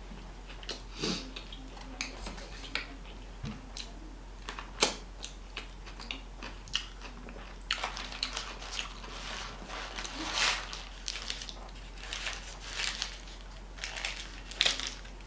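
A person chewing and biting fast food close to the microphone: irregular smacking and crunching mouth sounds that come thicker in the second half.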